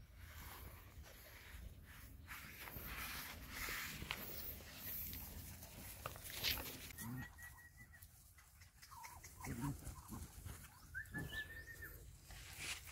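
Puppies and dogs milling about close by, with faint scuffling and a couple of short, high whines about seven and eleven seconds in.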